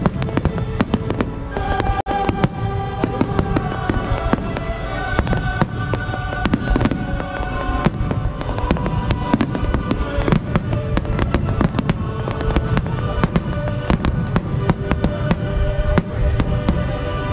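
Aerial fireworks going off in rapid succession, many sharp bangs and crackles a fraction of a second apart, with music playing underneath.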